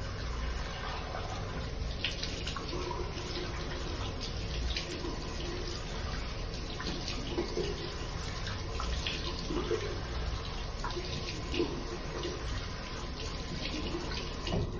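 Bathroom sink tap running steadily, with irregular splashes as hands scoop water over the face.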